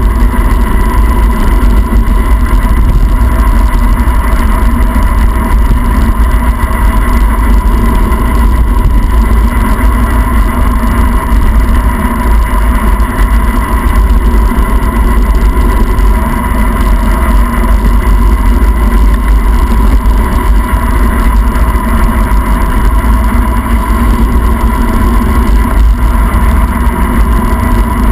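Loud, steady wind rush buffeting the microphone of a camera on a bicycle descending fast down a wet mountain road.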